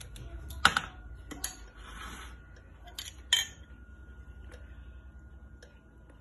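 Metal kitchen tongs and a spoon clicking and tapping against ceramic bowls: a few sharp clicks, the loudest about half a second in and just after three seconds. A faint steady hum runs underneath.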